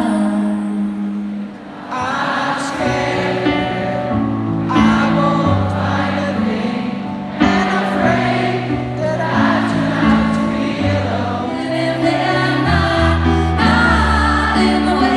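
Live pop ballad performed in an arena: piano chords held and changing every second or so under a sung melody.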